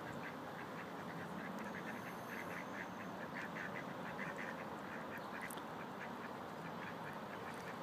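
Ducks quacking: a steady run of short, rapid calls over a constant background hiss.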